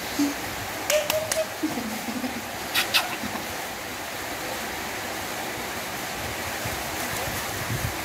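A steady rushing hiss of background noise, with a few light clicks about one second and three seconds in and brief faint squeaky tones in the first two seconds.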